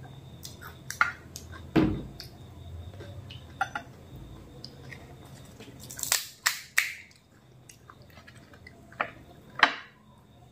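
Close-up eating sounds of phuchka (pani puri): chewing with scattered wet clicks and crisp crackles, including a sharp cluster about six seconds in as crisp puri shells are handled. Near the end comes a brittle crack as a hollow puri shell is broken open with a thumb.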